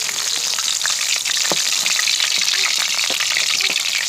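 Food sizzling and crackling steadily in hot oil in a frying pan, with a few clicks and scrapes of a utensil as it is turned.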